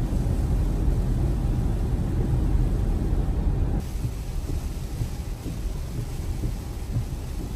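Steady low rumble inside an electric Tesla's cabin as it drives on a wet road in heavy rain: tyre noise on the wet pavement mixed with rain on the car. About four seconds in it drops suddenly to a quieter rumble.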